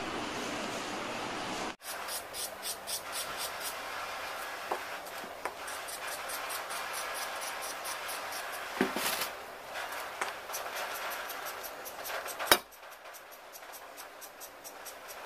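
Knife scraping the skin off a small green gourd in quick, evenly repeated strokes, with one sharp knock about twelve seconds in. A short stretch of steady hiss comes before the scraping starts.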